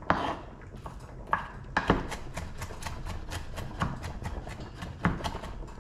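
Chef's knife rapidly chopping diced onion on a wooden cutting board: sharp knocks of the blade on the board, a quick run of about six a second in the middle with a few louder single strikes.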